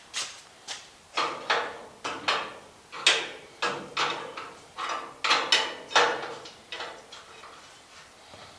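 Hand tools working metal parts: a run of sharp, uneven clicks and knocks, about two a second, stopping about seven seconds in. It sounds like a wrench or ratchet at work while the steering shafts are unhooked.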